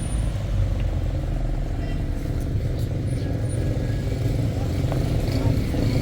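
Motor vehicle engine and road noise: a steady low rumble.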